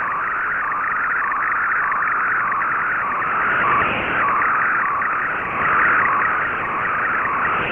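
Shortwave digital picture transmission (Fldigi MFSK image mode) heard through an Icom IC-R8600 receiver in AM: a continuous wavering data signal with no breaks, the sound of an image being sent line by line.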